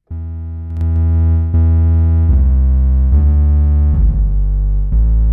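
Layered synthesizer patch built in Spitfire's eDNA engine in Kontakt, a saw-wave layer with saturation on the second layer, playing a line of sustained low bass notes that change pitch about every three-quarters of a second. It gets louder about a second in.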